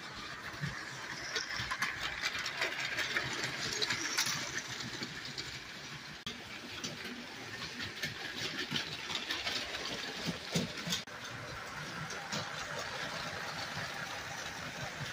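Motorised Lego trains running on plastic Lego track, a steady rattling whir with many quick clicks from the wheels crossing the track joints. There is one louder knock about two-thirds of the way through.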